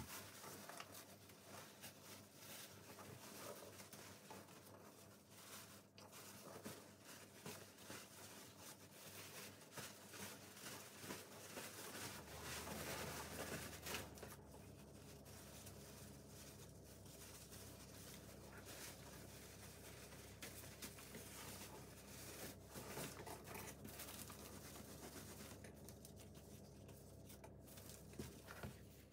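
Paper wrapping crinkling and tearing as it is pulled off a potted plant by hand, faint, with a louder stretch of rustling about halfway through.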